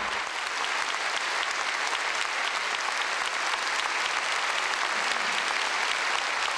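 Large audience applauding with dense, steady clapping.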